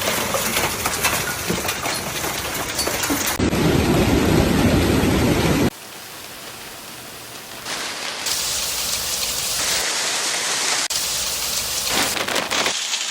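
Hailstorm noise: hail and heavy rain pounding down, heard across several spliced clips so the din changes abruptly a few times. It is loudest and deepest between about three and six seconds in, and drops back sharply after that.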